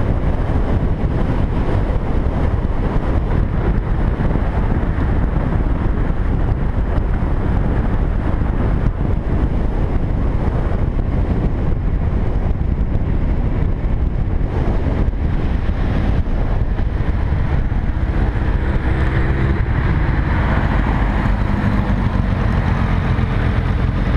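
Motorcycle riding at road speed: heavy wind rush on a bike-mounted camera's microphone over the engine running. In the last few seconds, as the bikes close up at a junction, a steadier engine note comes through the wind.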